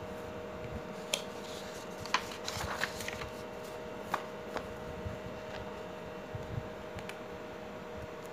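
Loose sheets of paper being handled and slid aside by hand: a few brief rustles and light taps, clustered in the first few seconds and again near the end, over a faint steady hum.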